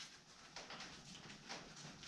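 Faint rustling of paper and cardboard wrapping being handled around an axe head, in a few soft swells.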